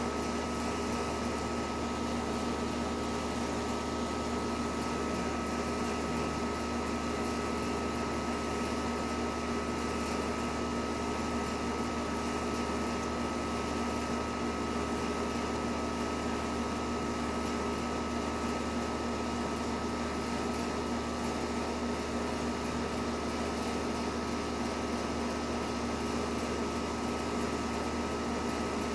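Steady machine hum with a few fixed tones, unchanging throughout.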